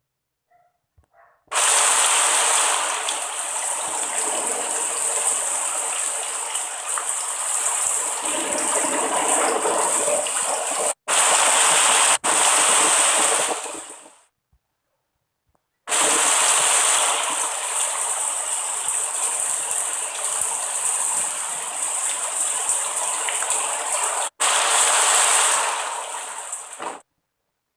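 Rushing water, a steady hiss, in long stretches that start and stop abruptly, with short silent gaps about a second and a half in and near the middle.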